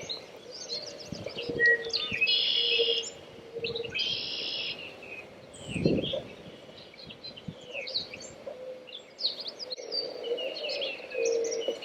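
Several songbirds chirping and singing, including two buzzy trilled phrases a couple of seconds apart. A dull thump about six seconds in.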